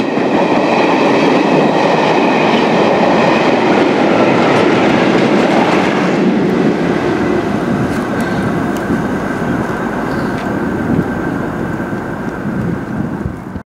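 Passenger train coaches running past at speed, wheels rumbling on the rails. About six seconds in the last vehicle goes by and the sound turns softer as the train draws away, with a thin steady whine and a few faint clicks remaining.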